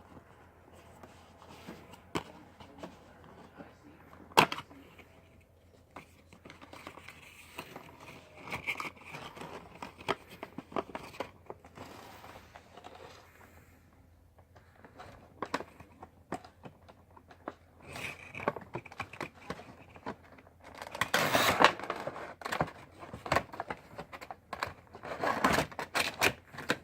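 A Funko Pop's cardboard box being opened from the bottom by hand: cardboard and the plastic insert crinkling, scraping and tearing, with scattered clicks and a sharp snap about four seconds in. Louder rustling comes in two spells near the end.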